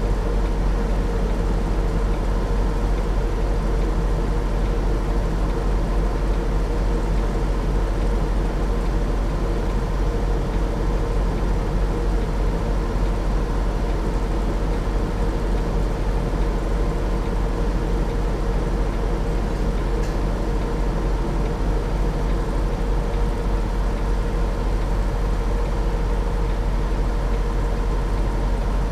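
Semi truck's diesel engine idling steadily, heard from inside the cab, a constant low rumble with a steady hum.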